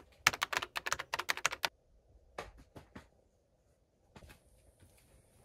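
Keyboard-typing sound effect: a quick run of sharp key clicks, about six a second, for the first second and a half, then a few scattered clicks.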